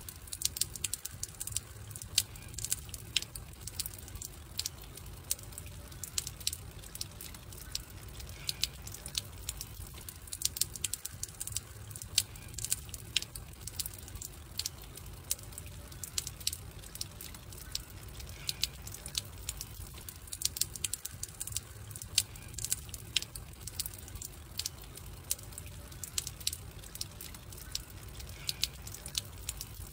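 Wood fire crackling: sharp, irregular pops and snaps over a low, steady rumble.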